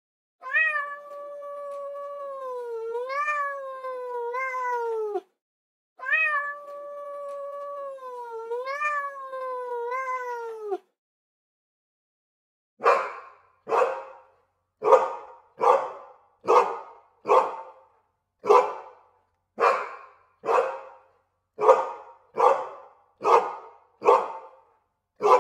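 A cat meowing in two long, drawn-out calls of about five seconds each, wavering in pitch. Then a dog barks steadily, about fourteen barks at a little over one a second.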